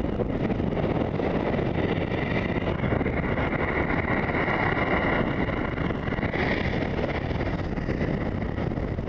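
Steady wind noise on the microphone of a skier going downhill, with the skis sliding and scraping over snow.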